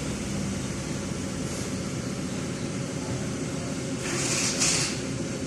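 Car engine idling steadily, an engine that has logged a misfire code. A short hiss breaks in about four seconds in.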